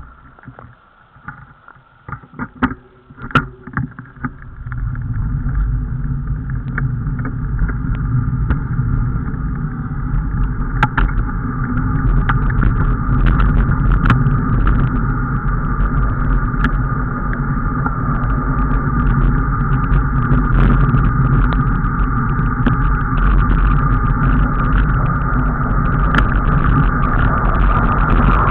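Onboard road noise from a vehicle moving down a street: a low rumble with wind on the microphone that builds over the first five seconds as it picks up speed, then runs steadily. A few light clicks and knocks sound in the first seconds and scatter through the rest.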